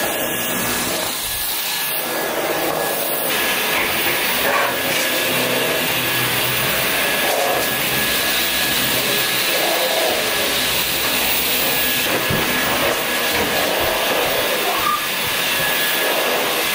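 Cordless stick vacuum cleaner running steadily, with a constant high motor whine over its suction noise, as its floor head is pushed over parquet and a rug.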